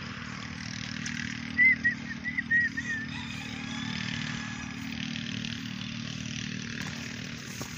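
An engine running steadily in the background, with a quick run of about six short high chirps around two seconds in.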